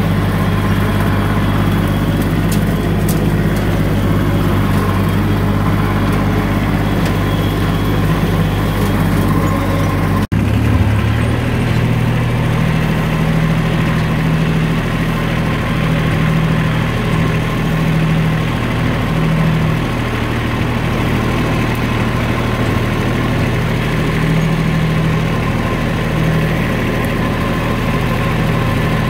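Vehicle engine running steadily while the vehicle drives along. About ten seconds in the sound cuts out for an instant and comes back as a different steady engine note.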